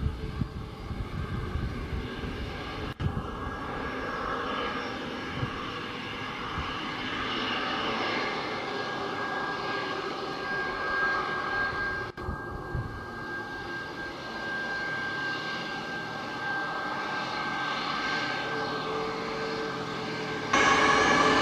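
Boeing 737 MAX 8's twin CFM LEAP-1B jet engines running at taxi power as the airliner turns on the runway, a steady jet whine with a high tone over a broad rush. Near the end the sound suddenly gets louder.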